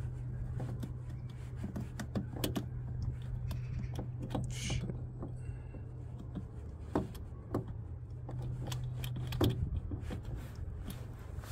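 Scattered light clicks and knocks from handling, over a steady low hum that stops near the end.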